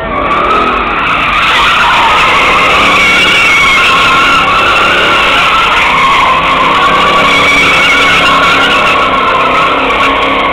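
Chevrolet muscle car doing donuts, its rear tires screeching without a break under a high-revving engine.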